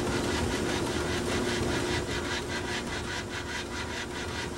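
Steam donkey engine running with a fast, even rhythmic clatter over a steady hum.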